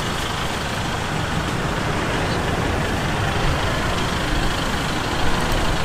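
Steady, loud rumbling background noise with no distinct events, heaviest in the low end.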